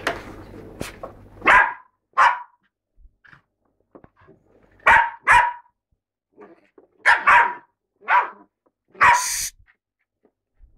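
Bichon Frise barking in play: about eight sharp barks, in ones and quick pairs, the last one longer.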